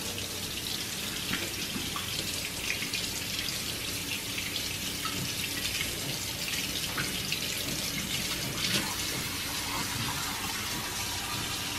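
Kitchen tap running steadily into a stainless-steel sink, the stream splashing as strawberries are rinsed by hand under it.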